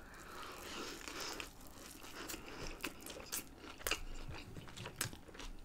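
A close-miked bite into a soft burger at first, then quiet chewing of the mouthful with scattered small wet mouth clicks.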